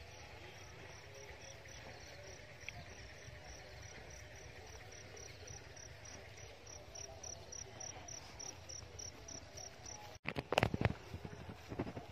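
A cricket chirping steadily, about four short high chirps a second, over a low rumble of light wind. Near the end come a few loud knocks and buffets on the microphone.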